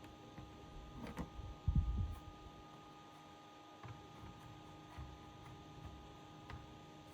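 Light knocks and small clicks of a laptop's backplate being handled and fitted back on, with one louder low thump about two seconds in, over a faint steady electrical hum.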